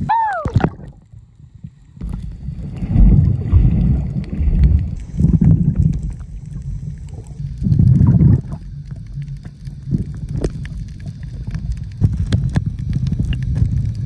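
Muffled sound of a camera held underwater while snorkeling: low, uneven rushing surges of moving water with a few sharp clicks.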